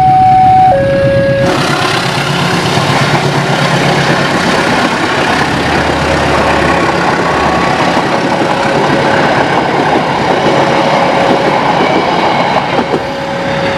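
KAI diesel locomotive and its passenger coaches passing close on a curve while accelerating from the station: a steady low engine hum under loud wheel-on-rail noise that swells about a second and a half in and carries on as the coaches roll past. At the start a two-tone level-crossing warning alarm finishes, and its tone is heard faintly a few more times.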